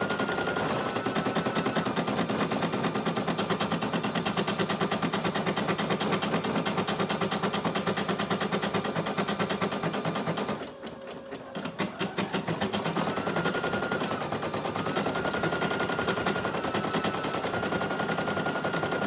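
Brother PE800 single-needle embroidery machine stitching out a design: a fast, even needle clatter over a motor whine. About eleven seconds in the stitching briefly quiets, then picks back up.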